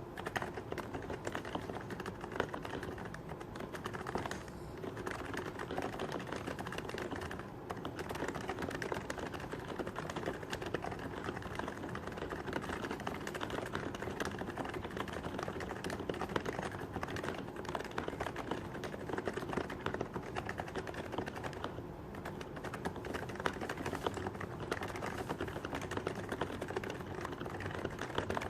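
Fast, continuous typing on a Happy Hacking Keyboard Professional 2 Type-S, the silenced version with Topre electrostatic capacitive switches: a dense run of keystrokes with a few brief pauses.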